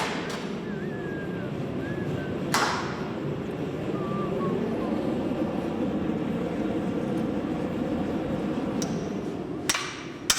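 Steady roar of a gas forge burner. A single sharp metal clank comes about two and a half seconds in, and hammer blows on the hot axe begin just before the end.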